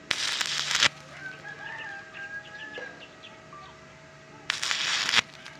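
Stick-welding arc crackling in two short bursts, each under a second, about four seconds apart, as the electrode is struck on a steel tube truss joint. Between the bursts a rooster crows in the background.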